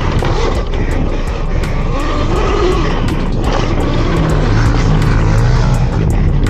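Loud, steady ride noise from an electric dirt bike being ridden off-road, mostly wind rushing over the microphone with trail and tyre noise. A low steady hum comes in about four seconds in.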